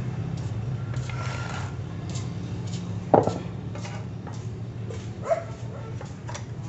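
Metal parts of a homemade drill-press stand being handled and set down on concrete, with scattered clinks and knocks. A loud sharp sound about three seconds in and a smaller one about two seconds later stand out over a steady low hum.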